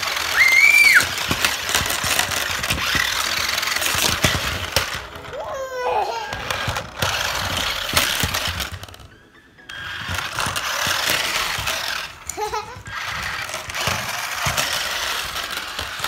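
Tumble Bee remote-control stunt car's electric motors whirring as it spins and tumbles on a hard tile floor, with a fast, continuous clatter of wheels and body knocking on the tiles. The sound cuts out briefly about nine seconds in, then starts again.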